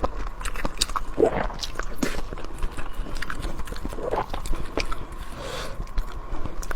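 Close-miked chewing: a dense run of sharp wet clicks and crunches from a mouth eating, with a few short, fuller mouth noises among them.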